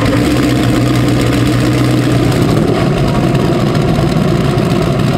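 Mercury Racing 1100 twin-turbocharged 9-litre V8 racing engine running with a steady, even drone.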